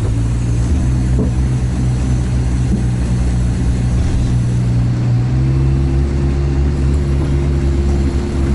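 Sherp all-terrain vehicle's diesel engine running steadily, its note shifting slightly about five seconds in.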